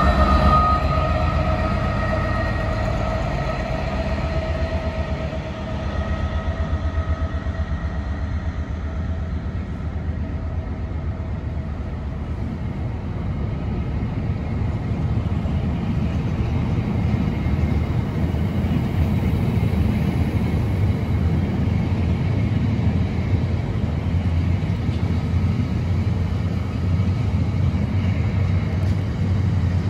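Freightliner Class 66 diesel-electric locomotive passing, its two-stroke V12 and a whine fading over the first several seconds. Then a long rake of loaded hopper wagons rolls by with a steady rumble and a rhythmic clatter of wheels over rail joints.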